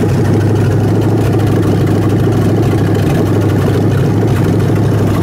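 Freshly rebuilt Ford 302 small-block V8 on an engine stand, running steadily at an even speed during first start-up and carburettor tuning.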